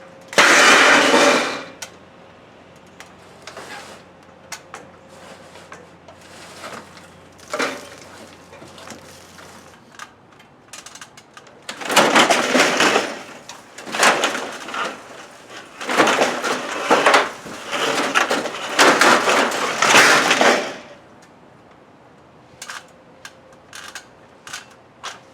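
Crashing, scraping and clattering of a storm-damaged metal carport being pulled apart: a loud crash just after the start, scattered knocks and clicks, then a run of loud scraping crashes from about halfway until near the end.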